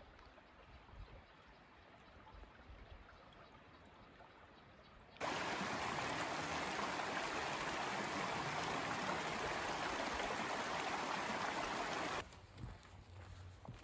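Shallow creek running over a rocky bed: a steady rush of water that starts abruptly about five seconds in and cuts off abruptly near the end. Before and after it, only a faint hiss.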